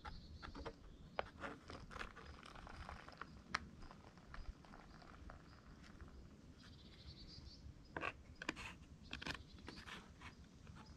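Water poured from a small camping pot into a pouch held in the hand, a soft trickle coming and going, with faint crinkling of the pouch and scattered light clicks.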